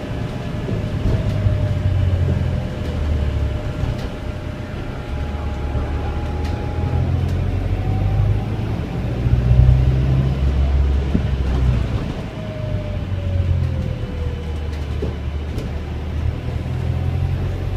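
Volvo B5LH hybrid bus on the move, heard inside the saloon: a deep engine and road rumble that swells and fades, with a faint whine that slides down and back up in pitch as the bus slows and picks up speed.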